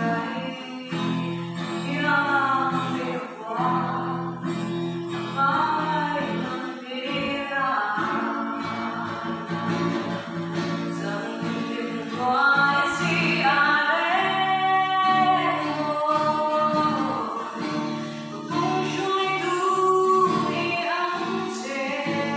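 A woman singing a Mizo hymn, accompanying herself on a strummed small guitar-like stringed instrument.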